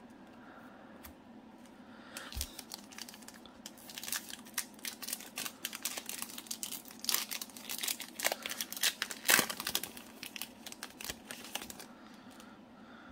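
Foil wrapper of a Panini Select basketball card pack crinkling and tearing as it is opened by hand, a fast run of crackles from about two seconds in until near the end, loudest about two-thirds of the way through.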